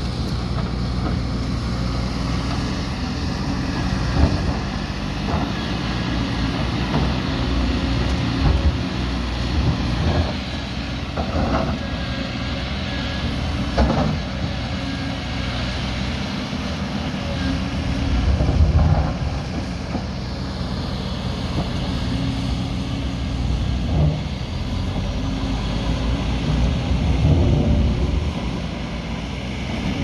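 JCB backhoe loader's diesel engine running and revving under load as it works earth. Several sharp knocks and clanks of the bucket and stones break through at irregular intervals.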